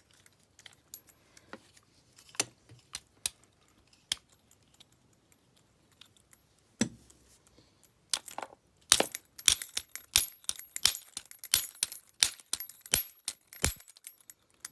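Metal tool being banged against a padlock to force out a stuck, rusted retaining screw: a few scattered knocks, then from about nine seconds a fast run of sharp metallic strikes, about three a second, with a high ringing tone.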